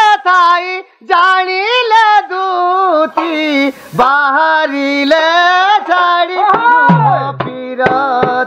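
A high solo voice sings a slow, sad Sambalpuri folk song in long held notes with wavering, ornamented pitch, the way Dand Nacha songs are sung. There are a few drum strokes, and a lower-pitched part joins near the end.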